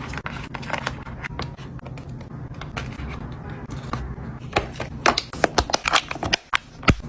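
Food containers and packages being handled and set down while restocking a refrigerator: a scatter of light taps and clicks, sparse at first and coming thick and fast in the second half.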